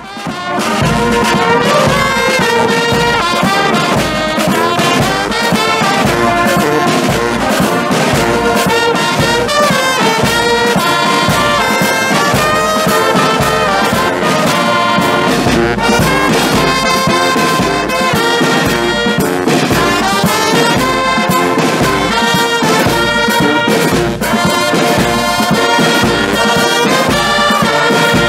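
Brass band of trombones, trumpets, euphoniums and sousaphones playing a tune in full harmony over a steady bass-drum beat.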